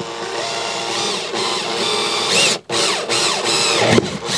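Cordless drill with a 3/8-inch bit boring into 1-inch PVC pipe, its motor whining and rising and falling in pitch as the trigger is worked. It stops for a moment a little over halfway, then starts again.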